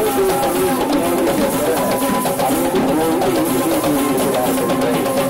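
Kandyan drums (geta bera) played in a steady, dense rhythm for the dancers, with a wavering melody line bending up and down over the drumming.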